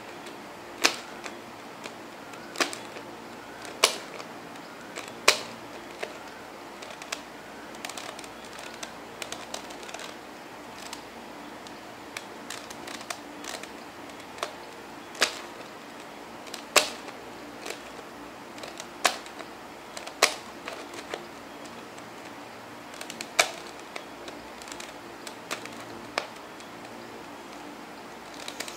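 Jia Xing Magic 2x2 plastic puzzle cube being turned by hand: the layers snap round with sharp, irregular clicks, a loud one every second or two and fainter ones in between.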